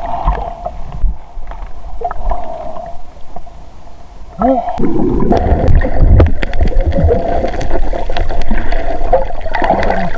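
Sea water sloshing around a camera held at the surface. About four and a half seconds in, the sound turns to a louder, muffled rumble and gurgling as the camera goes underwater.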